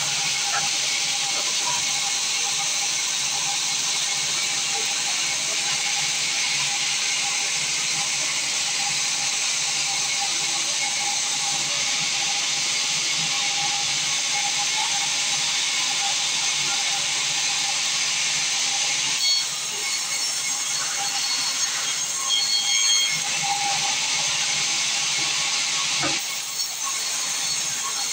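Sawmill machinery running: a loud, steady hiss with a faint steady tone, changing briefly about two-thirds of the way in and again near the end.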